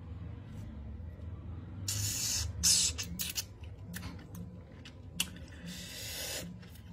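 Mouth sounds of a man sucking on a salted lime wedge: short hissing and sucking bursts of air, about three of them, with scattered lip smacks and clicks.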